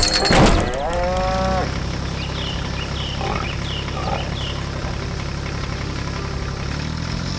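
A cow moos once near the start. Then a tractor engine runs steadily, with birds chirping over it.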